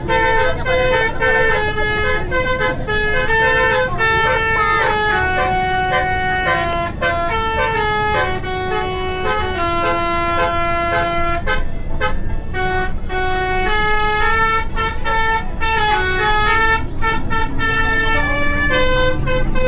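A continuous tune of held, stepped notes with a horn-like tone, over a low rumble.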